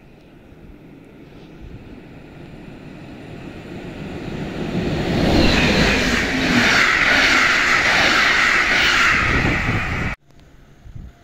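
Passenger train approaching and passing through the station at speed: a rushing sound of wheels on rails that builds steadily and is loudest for the last few seconds as the coaches go by, then cuts off suddenly.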